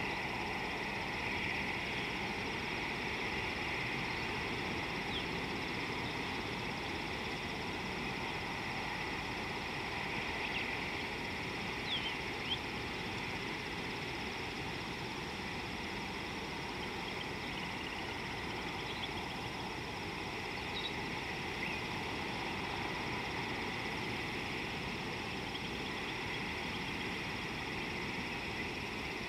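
Steady outdoor ambience at a watering hole: a constant hiss and hum with a few brief high chirps scattered through the middle.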